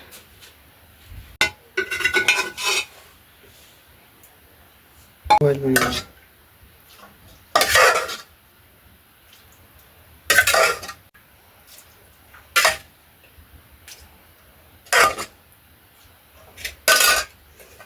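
Metal dishes and spoons clattering and clinking in short separate bursts every couple of seconds, some of them ringing briefly.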